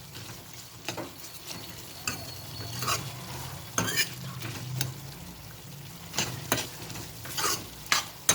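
Vegetables and mint frying in oil in a pan with a steady sizzle, while a spatula stirs and scrapes against the pan in irregular strokes.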